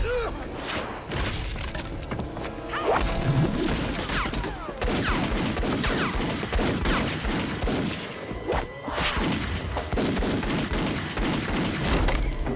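Film-soundtrack gunfire: volleys of pistol shots in quick, irregular succession, mixed with hits and crashes.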